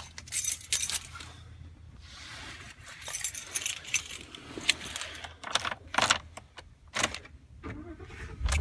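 Keys jangling and clicking as the key goes into the ignition of a Ford F-150 and is turned. Right at the end, a low rumble begins as the 5.0 V8 starts.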